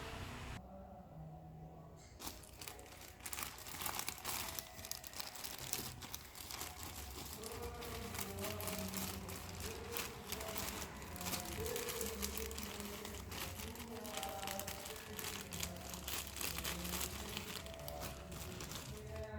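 Plastic packaging being handled and opened, crinkling steadily in dense crackles from about two seconds in.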